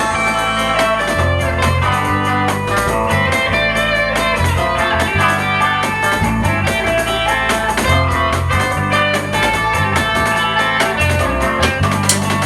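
A rock band playing an instrumental passage without vocals: guitar out front over bass notes and a drum kit.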